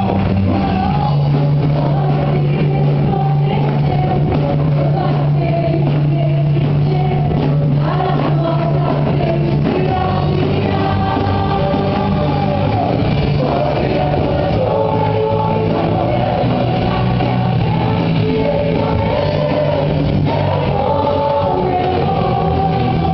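Praise-and-worship music: a band playing held bass notes that change every few seconds, under several voices singing together.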